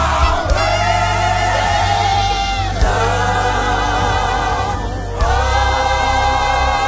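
Live gospel worship music: voices sing long held notes with vibrato over a steady low bass. The notes change about half a second in, near three seconds and again about five seconds in.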